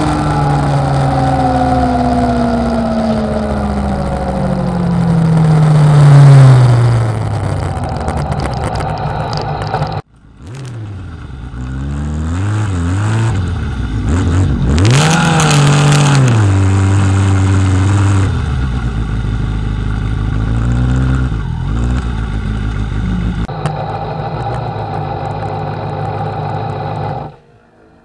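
Kawasaki ZX-6R inline-four engine heard from an onboard camera over wind rush, its note falling steadily as the bike coasts down from speed with the rear tyre's sidewall split and deflated. After an abrupt cut the engine revs up and down a few times, then runs at low revs, and the sound cuts off suddenly near the end.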